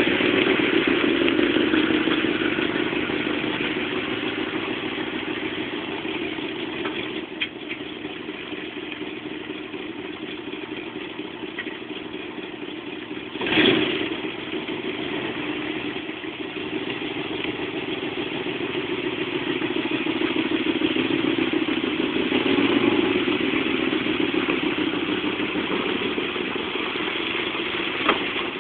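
1966 Ford Galaxie LTD's engine running steadily, slowly growing louder and softer. There is a single thump about halfway through.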